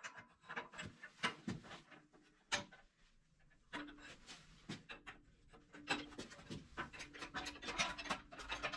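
Hydraulic floor jack being worked under a steel lifting-table frame: scattered faint clicks, knocks and scraping of the jack and frame, with a faint low hum that comes and goes about once a second in the second half.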